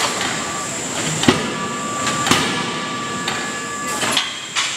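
C92K-series 2-ton CNC hydraulic die forging hammer striking a hot connecting-rod blank in its die: several sharp blows roughly a second apart, the strongest about a second in, some followed by a metallic ring lasting about a second. Steady machinery noise runs underneath.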